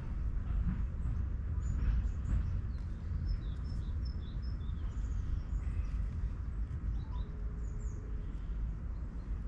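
Small songbirds chirping, short high calls scattered throughout, over a steady low rumble.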